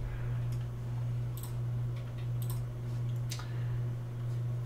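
Four faint computer mouse clicks, about a second apart, over a steady low hum.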